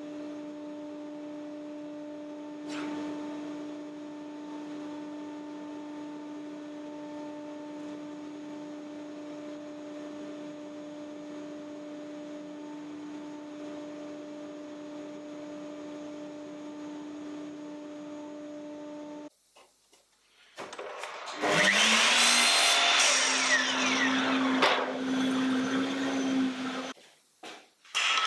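A steady machine hum, then, after a sudden break, a loud power-tool motor that spins up with a quickly rising pitch, runs steadily for about five seconds and stops.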